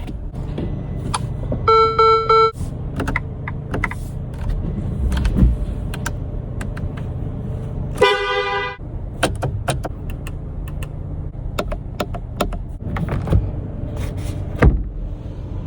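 Ferrari 296 GTB running at a steady low idle, with two short honks of a single pitch, about two seconds in and again about eight seconds in. Scattered sharp clicks run throughout.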